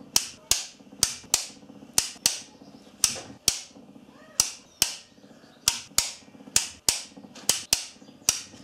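Ratchet torque wrench clicking on its back-strokes while a cylinder-head stud nut is wound down, as the studs are brought up to 60 ft-lb in the tightening sequence. Sharp clicks, mostly in pairs about a third of a second apart, a pair roughly every second.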